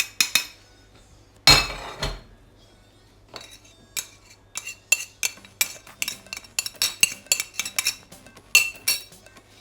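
A utensil clinking and knocking against a mixing bowl as a yogurt and spice marinade is mixed into lamb chops. There is one louder knock about one and a half seconds in, then a steady run of clinks at about two a second.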